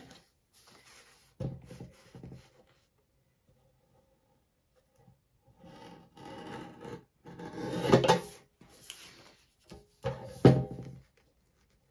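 Sheets of self-adhesive holographic vinyl handled and slid across a paper trimmer, with the trimmer's blade cutting through the vinyl. There are two loud strokes, about eight and ten and a half seconds in.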